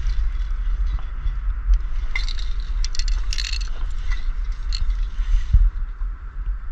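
Close handling noise on a body-worn camera: scraping and rustling over a steady low rumble, with a cluster of short, hissy bursts in the middle.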